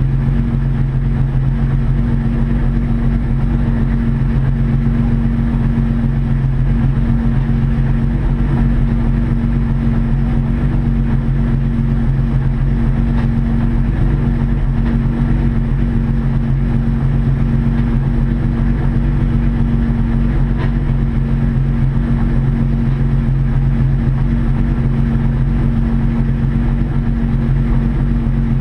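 Race car's engine with road and tyre noise, heard from inside the stripped, roll-caged cabin at speed: a loud, steady drone.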